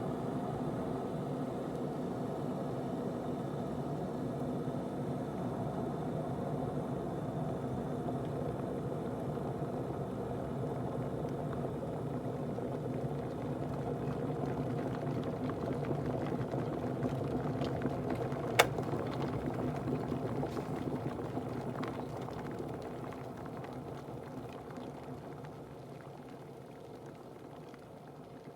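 Russell Hobbs Textures+ electric kettle heating water to the boil, a steady bubbling rumble. A single sharp click comes about two-thirds of the way through, after which the boiling sound gradually fades away.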